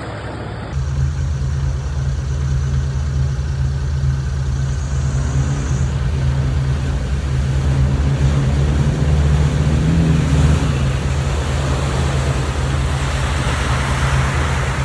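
Land Rover Defender 90 engine running steadily as it drives through a river ford, with the rush of water thrown up by the wheels.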